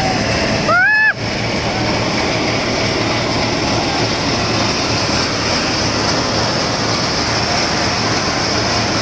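Diesel engine of an Inder 4x4 combine harvester running hard as it drives out of mud, a loud, steady rushing roar. A short rising cry cuts across it about a second in.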